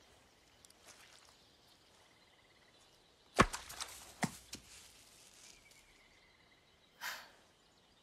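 A wooden pall-mall mallet strikes a ball with a sharp knock about three and a half seconds in, followed by two lighter knocks as the ball hits the ground and bounces. A short breathy rustle comes near the end.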